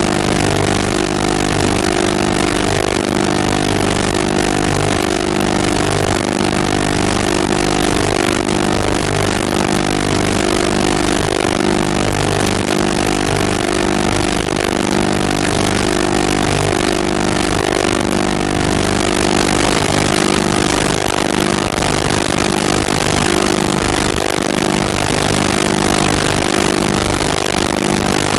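A steady machine-like drone: several constant hum tones under a loud, even hiss, unchanging in level and pitch throughout.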